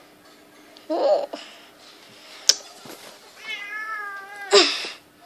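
Pet cat meowing: one drawn-out meow of about a second near the end, after a short low sound about a second in. A sharp tap near the middle, and a short noisy puff right after the meow.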